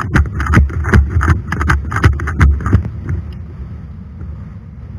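Quick footsteps crunching on gravel, about four a second, stopping about three seconds in.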